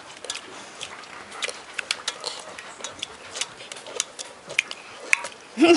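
Puppies lapping and licking from a stainless steel bowl: an irregular string of quick wet clicks and smacks. Near the end, a short loud cry that slides up in pitch.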